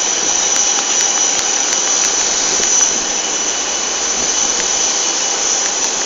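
Jet aircraft engines running steadily on an airport apron: a high-pitched whine over a rushing hiss.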